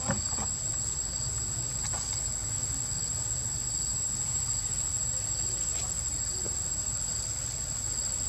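Insects chirping in a steady, even pulse, with a constant high-pitched drone and a low rumble underneath; a single click just after the start.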